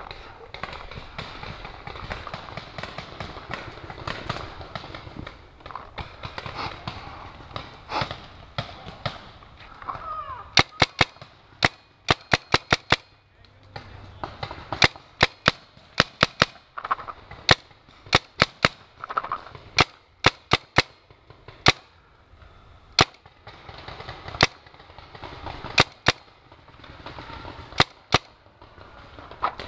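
Paintball marker firing in quick strings of sharp pops, two to six shots at a time. The shooting starts about a third of the way in and goes on and off to the end.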